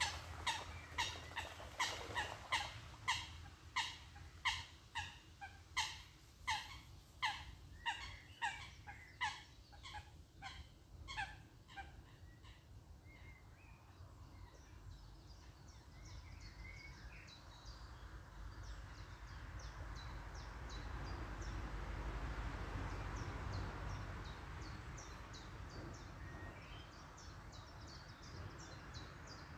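Geese honking in a rapid, regular series, about two honks a second, fading out after about twelve seconds. Small birds then chirp faintly and high-pitched over a soft rushing noise that swells and eases.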